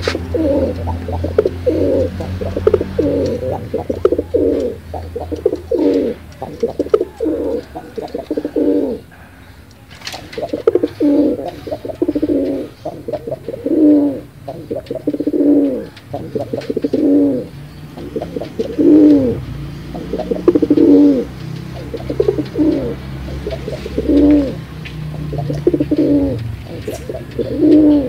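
Domestic pigeons cooing over and over in a quick, continuous run of coos, with a short break about nine seconds in.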